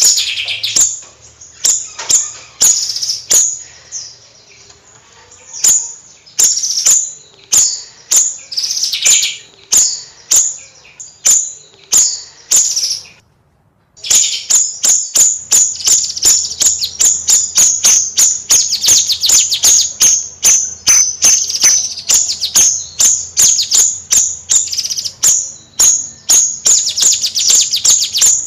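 A bayeman songbird singing loudly in a rapid, high-pitched chattering song. It comes in short separate phrases at first, then after a brief break about halfway it sings one long, fast, unbroken run of notes.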